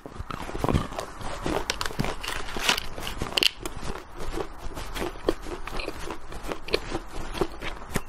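Close-miked biting and chewing of crunchy food, mostly chocolate judging by the picture: a continuous run of crisp crunches and crackles with a few louder bites.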